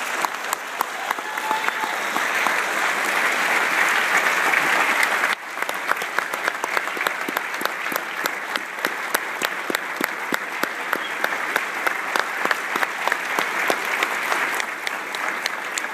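A large audience applauding, dense steady clapping that briefly drops in level about five seconds in and then carries on.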